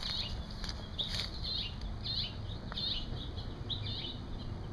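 Small birds chirping: short, high chirps repeating two or three times a second.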